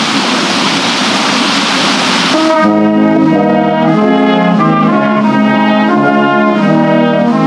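Rushing water from a water wheel and river. About two and a half seconds in, a church brass ensemble of trumpets and trombones starts a hymn, playing sustained chords that change every half second or so.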